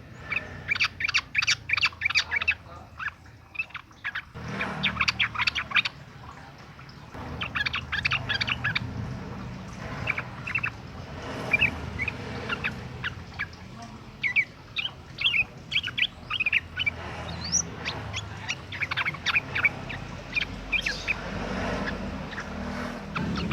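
Yellow-vented bulbul (trucukan) singing vigorously: repeated bouts of quick, bubbly chirping notes, each bout lasting about a second or two with short pauses between them.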